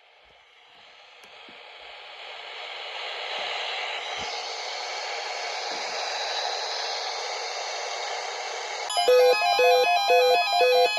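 Hiss of static from a weather radio receiver, swelling over about three seconds and then holding steady while the NOAA Weather Radio WNG655 signal is acting up. About nine seconds in, a loud electronic tune of quickly repeating beeping notes cuts in suddenly.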